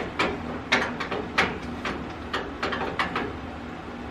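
A series of about ten sharp, irregular knocks and clicks, typical of tools and metal parts being handled.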